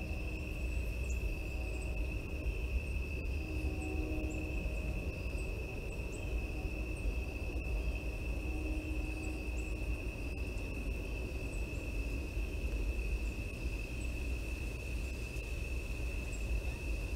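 A night insect trilling in one steady, unbroken high buzz, over a constant low rumble, with faint short chirps scattered above it.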